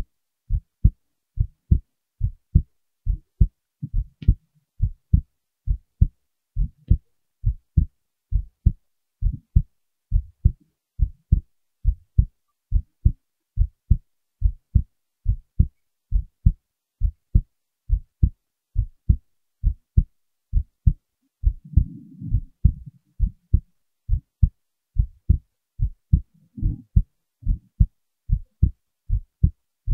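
Heartbeat: a steady rhythm of short, low thumps, about two a second. A brief low rustling noise comes in about three-quarters of the way through.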